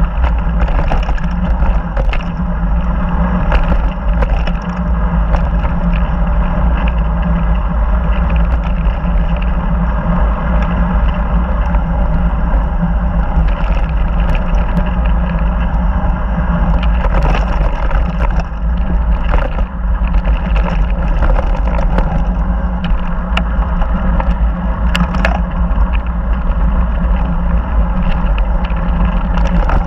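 Mountain bike riding down a dusty, rocky dirt trail: a steady heavy rumble of wind on the microphone and tyres on gravel, with scattered clicks and rattles from stones and the bike.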